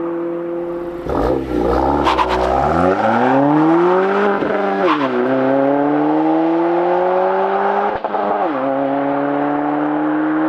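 Exhaust note of an 11th-gen Honda Civic Si / Acura Integra's 1.5-litre turbocharged four-cylinder through an AWE cat-back exhaust as the car accelerates. Engine pitch dips about a second in, climbs, then drops sharply at upshifts around five and eight and a half seconds in, rising again after each.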